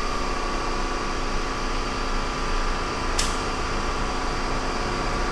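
A steady mechanical hum with a thin, steady whine over it, and a single faint click about three seconds in.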